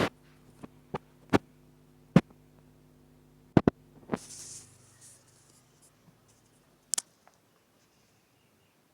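A faint low hum that stops about four and a half seconds in, with a series of sharp, separate clicks or knocks; near silence after the last click.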